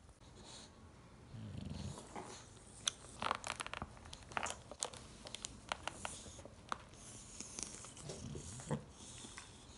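English bulldog chewing an empty plastic water bottle: sharp, irregular crinkles and crackles of the plastic, starting about three seconds in.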